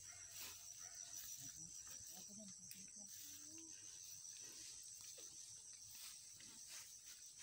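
Faint, steady high-pitched chirring of field insects.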